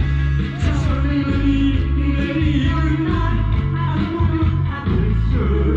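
Amateur singer performing a trot song into a microphone over a loud PA, with a backing track carrying a heavy bass beat.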